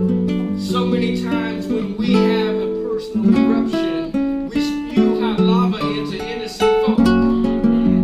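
Acoustic guitar playing a steady run of plucked and strummed notes.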